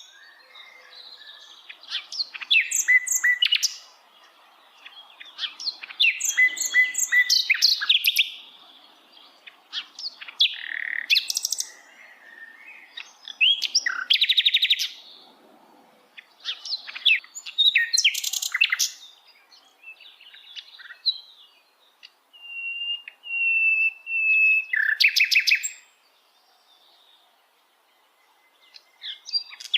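Brown-chested jungle flycatcher (sikatan londo) singing: a string of short, varied phrases of chirps and fast rattling trills with brief pauses, and a thin wavering whistle a little past the middle.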